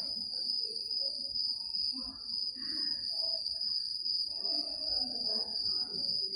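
A steady, unbroken high-pitched tone, with faint voices murmuring beneath it.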